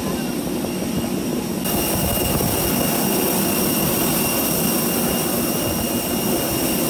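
Jet aircraft noise on an airport apron: a steady rumble with several high, steady whine tones over it, stepping up louder and brighter about two seconds in.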